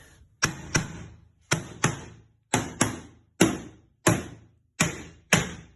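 Hammer striking a mini crowbar, driving it in to pry an iron angle bar off a wooden box: about eleven sharp metal-on-metal blows, mostly in quick pairs, each ringing briefly. Very loud.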